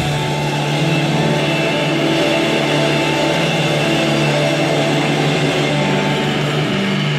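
Live church band music holding a long, steady low chord, with a dense wash of sound above it.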